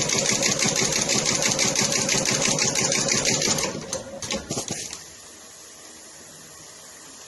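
Industrial sewing machine stitching at a fast, even rate. It stops about three and a half seconds in, runs a few short bursts, and then only a faint steady hum remains.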